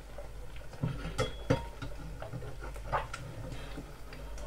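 Kitchen utensils and dishes being handled on a worktop: a few sharp clinks and knocks, the loudest about a second and a half in, one with a short ring.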